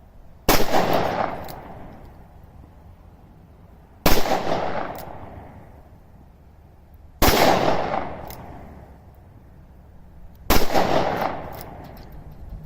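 Four shots from a Ruger .357 Magnum, fired slowly about three seconds apart, each followed by a long echoing decay.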